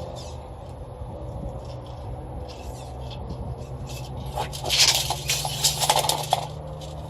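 Soft copper refrigerant tubing being uncoiled and handled while measured out: a cluster of scraping and clattering from about four seconds in, lasting two seconds, over a steady low hum.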